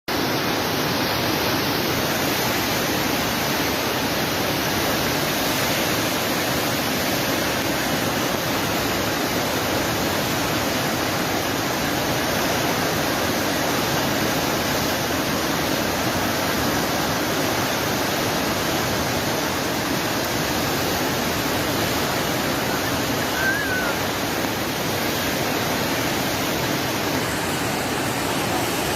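Alaknanda river in spate after days of heavy rain, its floodwater rushing in a steady, unbroken roar.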